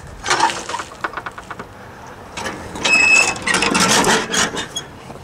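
The hood of a 1986 Ford F700 truck being unlatched and swung open: irregular metal clunks and rubbing, with a short squeak about three seconds in.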